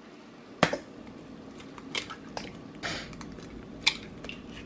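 Raw eggs being cracked on the rim of a stainless steel mixing bowl. A sharp tap comes about half a second in, then a few lighter crackles and clicks as the shell is pulled apart, and another sharp tap near the end.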